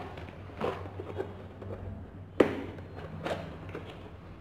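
Cardboard box of a digital bathroom scale being handled and turned on a hard floor: a few short knocks and rustles, the loudest knock about two and a half seconds in, over a low steady hum.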